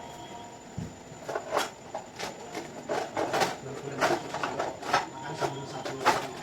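An irregular run of light knocks and clicks, about two a second, starting about a second in.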